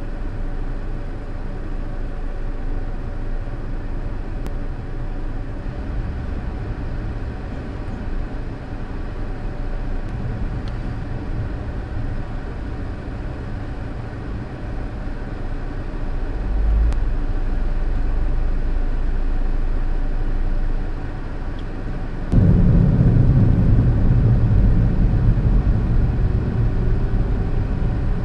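Car's cabin sound in slow traffic, heard through the windscreen-mounted dashcam: a steady low engine and road rumble that steps up noticeably louder in the last few seconds.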